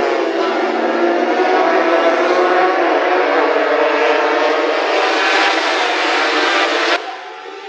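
A pack of small racing motorcycles running at high revs through a corner, many engine notes overlapping and wavering as the riders work the throttle. The sound drops suddenly about seven seconds in to a quieter engine note.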